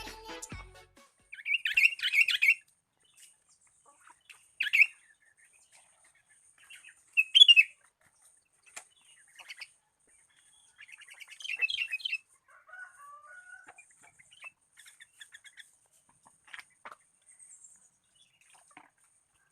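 Small songbird chirping in short, separate bursts of high chirps and brief trills with pauses between them, loudest about seven seconds in.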